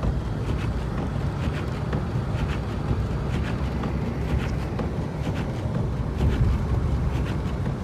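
A car driving on a snowy, slushy road: a steady low rumble of tyres and engine with wind noise, and scattered faint clicks.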